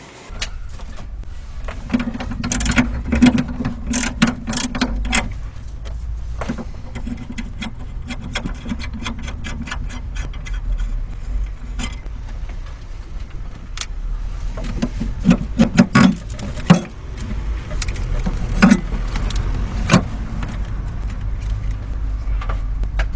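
Clicks, clinks and rubbing of tools and parts being handled while working on the car, over a steady low rumble.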